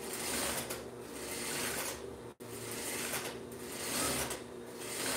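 Juki industrial straight-stitch sewing machine stitching horsehair braid onto sheer fabric in several short bursts, starting and stopping as it is fed slowly, over a steady low hum.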